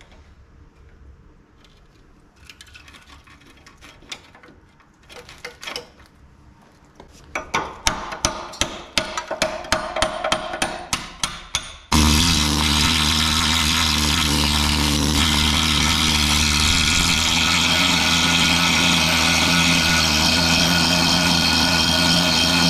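Hammer tapping on a rusty steel truck chassis to knock off rust scale and flaky paint: quiet scattered taps at first, then steady blows about three a second. About twelve seconds in the tapping stops and a much louder steady sound starts abruptly and holds.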